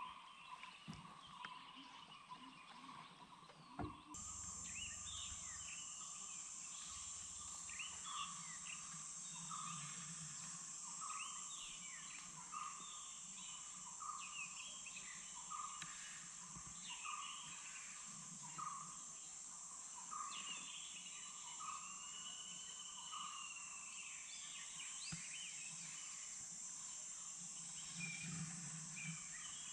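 Faint forest ambience: birds calling, one repeating a short note about once a second among other chirps, over a steady high-pitched drone that sets in about four seconds in.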